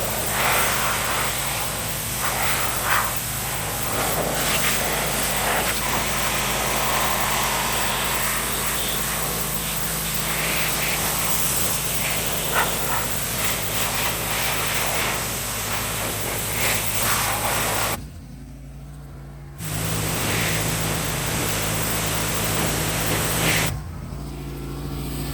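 Pressure washer spraying a jet of water onto a moss-covered car body: a steady loud hiss of spray over the washer's steady motor hum. The spray cuts off twice in the last third, briefly, while the motor keeps running.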